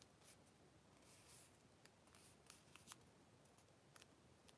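Near silence: room tone with a scatter of faint, short clicks and a brief rustle about a second in.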